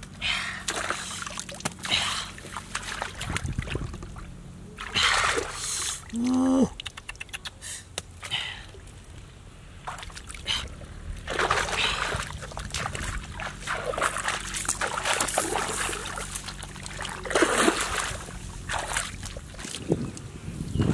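Hands and a bamboo stick splashing and squelching in shallow muddy water, in irregular bursts, while someone gropes through the mud.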